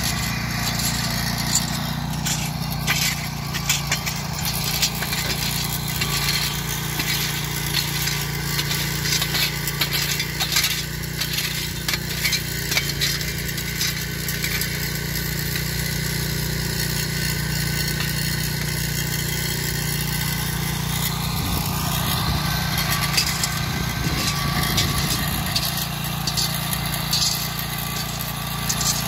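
Small petrol engine of a portable rail track-maintenance machine running steadily, with frequent metallic clinks and knocks of tools and rail fittings.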